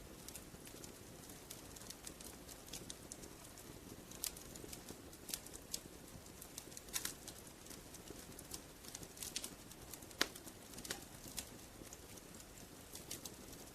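Wood fire in a fireplace crackling quietly: irregular sharp pops and snaps over a soft steady hiss, the loudest snaps about seven and ten seconds in.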